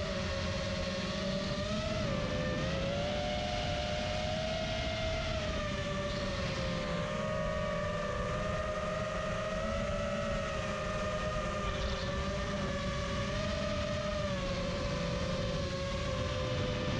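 FPV drone's motors and propellers whining at a steady pitch that wavers up and down with throttle changes, over a low rushing noise.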